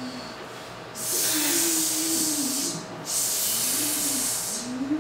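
Two long, loud hissing rushes of breath from performers' voices, starting about a second in and again near the middle, each about a second and a half long. Under them a low voice moans with a wavering pitch.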